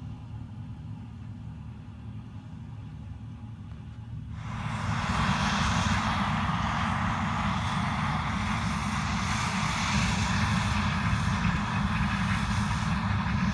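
Heavy engine running with a steady low rumble. About four seconds in, a much louder, even rushing noise sets in abruptly on top of it and holds steady.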